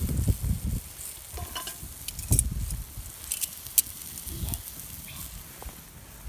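Seafood, tomato and olive-oil stew sizzling in a skillet over a campfire, with many sharp pops and crackles. A few low thumps, the loudest about two seconds in.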